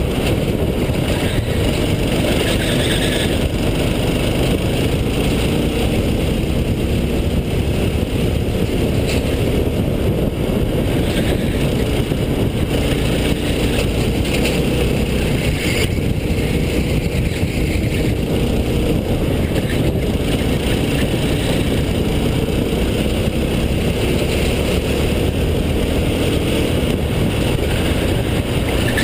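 Racing kart's engine running hard through a lap, heard from on board the kart, its pitch wavering up and down with the throttle through the corners.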